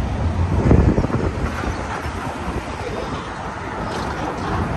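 City street traffic noise: a steady low rumble that swells briefly about a second in.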